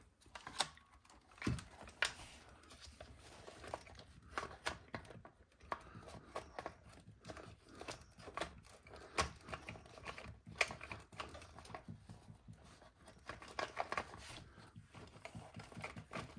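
Hands fitting the plastic parts of a radio-controlled truck back together: irregular small clicks, taps and rattles.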